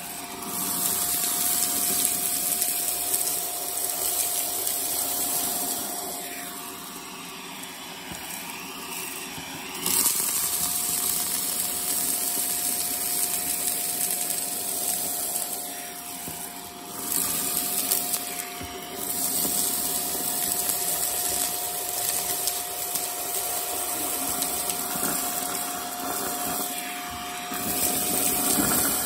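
Shark vacuum cleaner running steadily with its upholstery tool sucking up loose confetti and glitter bits. A steady motor hum sits under a rush of air that rises and falls several times.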